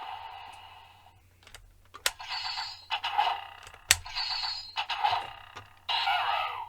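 Kamen Rider Geats DX Magnum Shooter 40X toy gun working with the Arrow Raise Buckle: two sharp plastic clicks about two seconds apart, each followed by a short burst of electronic sound effects from the toy's speaker. A louder, continuous electronic sound from the toy starts near the end.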